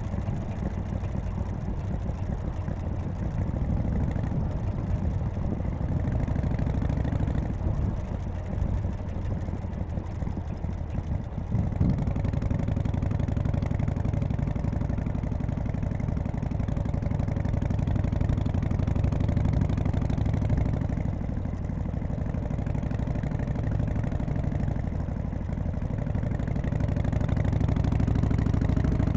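1991 Harley-Davidson Softail FXSTC's Evolution V-twin running on the road. The engine note eases off for a few seconds, then picks up sharply about twelve seconds in.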